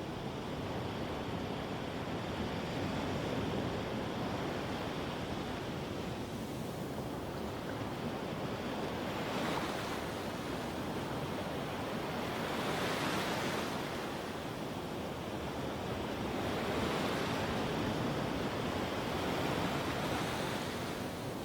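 Medium ocean waves breaking and washing up on a sandy beach, a continuous rush of surf with several waves swelling louder and hissing brighter, about 9, 13 and 17 seconds in.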